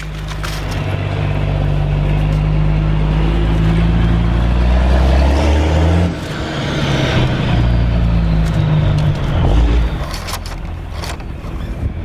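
A vehicle engine running loudly, its pitch holding steady and then shifting down and up again about halfway through, easing off near the end.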